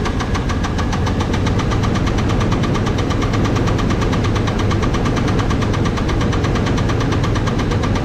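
Small-block Chevy V8 running with a rapid, steady knock from a connecting rod: the sign of a failing rod bearing.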